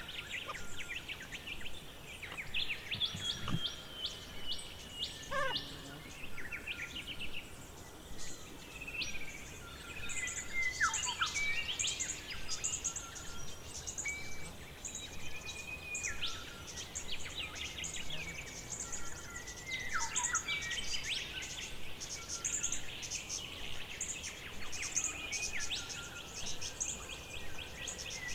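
Forest birdsong: many birds chirping and trilling at once, with several calls sliding down in pitch.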